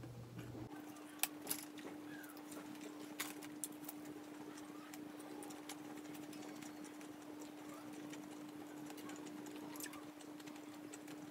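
Close-up mouth sounds of a person eating roast chicken with its skin: chewing with scattered wet clicks and lip smacks, a few of them louder, over a faint steady hum.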